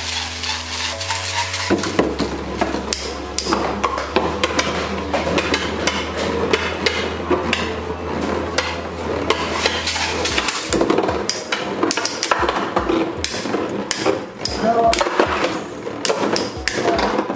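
Metal-ringed Infinity Nado spinning tops clashing and skittering in a plastic stadium: rapid, uneven clicks and knocks as the tops collide with each other and the bowl walls.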